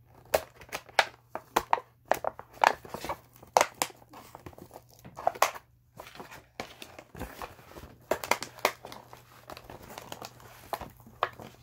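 Plastic toy packaging and the cardboard box crinkling and tearing as a toy dinosaur figure is pulled free, in an irregular string of short sharp crackles.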